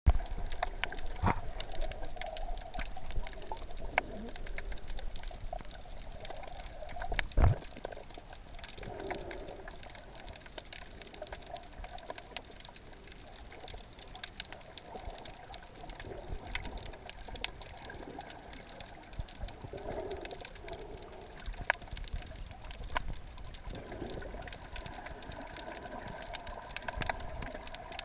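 Underwater ambience heard through a waterproof camera housing: a muffled, steady water noise with scattered sharp clicks and one loud dull thump about seven seconds in.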